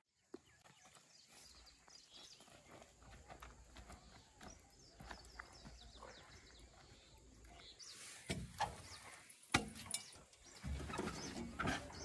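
Footsteps on dry dirt, then a series of sharp knocks and clunks from about eight seconds in as a man climbs up onto the seat of a Swaraj 744 XT tractor.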